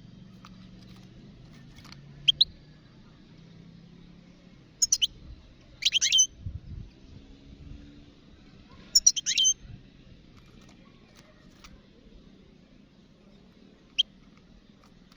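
European goldfinch giving short, high twittering calls: about five brief bursts with pauses between, the loudest around the middle.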